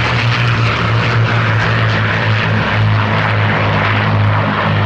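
Piston-engined fighter aircraft in flight, a steady engine drone with propeller noise.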